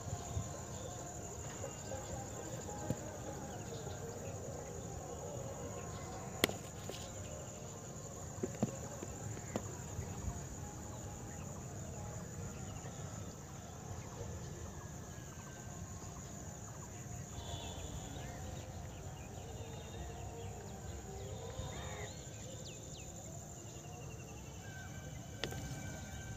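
Outdoor pondside ambience: a steady high insect drone over a low rumble, with birds calling now and then, more in the second half, and a few sharp clicks, the loudest about six seconds in.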